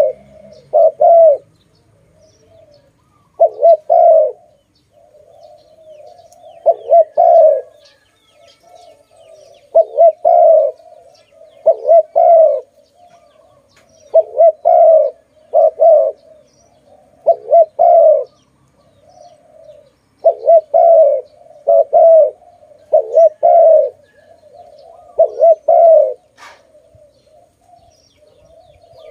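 Spotted dove cooing loudly and repeatedly: groups of two or three low coo notes, each phrase repeated every two to three seconds, with softer coos between them.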